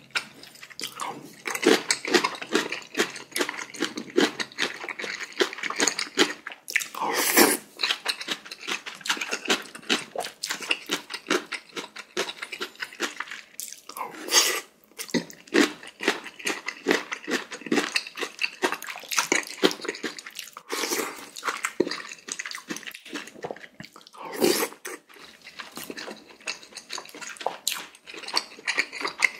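Close-miked eating: a person chewing with rapid wet clicks and smacks, eating pork-bone galbitang and spicy radish kimchi, with three louder noisy bursts at about 7, 14 and 24 seconds in.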